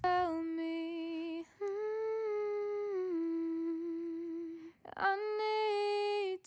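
Soloed hard-panned backing-vocal layer singing long held notes in three phrases, with short breaks between them. With its EQ lift around 1 kHz and high end, it sounds really quite harsh and thin.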